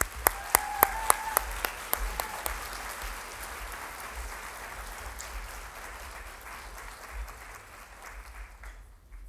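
Audience applauding, with a few loud claps close by in the first couple of seconds; the applause fades and stops just before the end.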